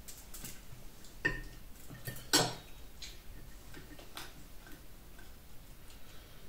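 Eating noises at a table: scattered short clicks and light taps as chicken satay is pulled off wooden skewers and chewed. The loudest click comes about two and a half seconds in.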